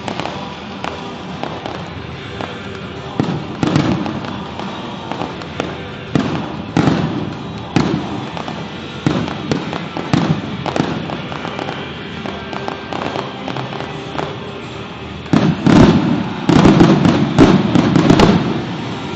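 Fireworks bursting in a series of separate bangs about a second apart, then a rapid barrage of loud bursts about three seconds before the end, with music playing underneath.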